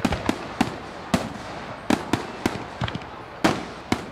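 Fireworks going off: about ten sharp bangs and cracks at irregular intervals over a steady hiss, the loudest about three and a half seconds in.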